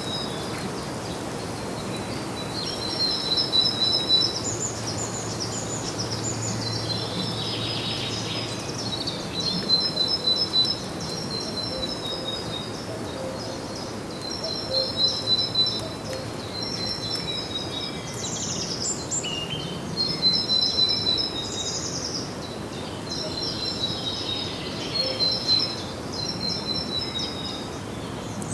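Songbirds singing: short phrases of rapid, high, chirping notes repeat every second or two over a steady background hiss.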